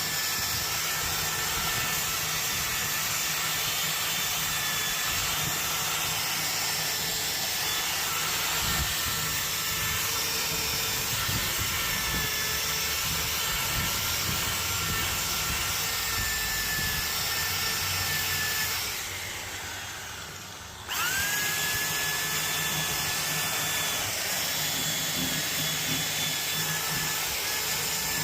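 Power tool spinning a brush over a carved wooden 3D design, running steadily with a high whine. About two-thirds through it winds down for about two seconds, then spins back up with a rising whine and runs on.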